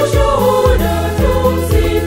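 Church choir music: singing voices over a steady low beat, about two strokes a second.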